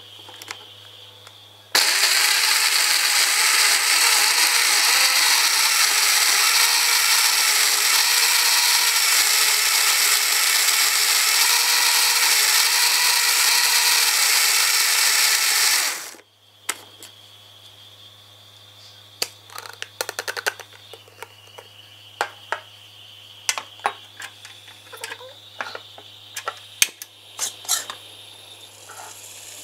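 Electric countertop blender running for about fourteen seconds, grinding chilies, garlic, shallots and tomato into a smooth spice paste, then stopping abruptly. Scattered light clicks and knocks follow.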